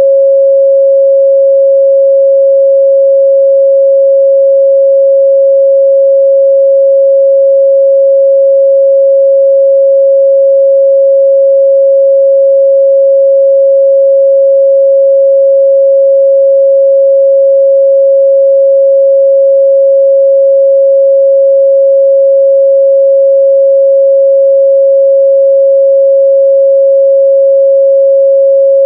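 A steady, loud 547 Hz sine-wave test tone, one pure pitch held unchanging.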